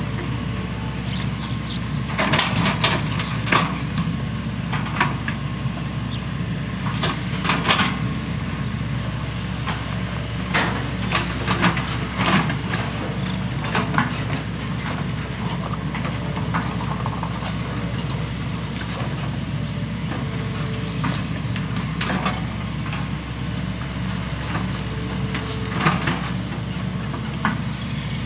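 Two excavators, a Hitachi EX200-5LC and a long-reach Sumitomo SH120, digging together. Their diesel engines run steadily under load, with sharp clanks from the buckets and arms every second or few, bunched around the middle.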